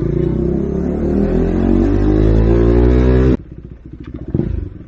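KTM 390 Duke single-cylinder engine revving, its pitch climbing steadily for about three seconds. The throttle then shuts suddenly and the engine drops to a quieter low burble, with a short blip near the end.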